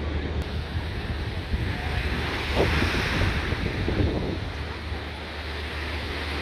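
Strong wind buffeting the microphone with a steady low rumble, over surf breaking on a beach. A wave rushes in about two seconds in and fades a couple of seconds later.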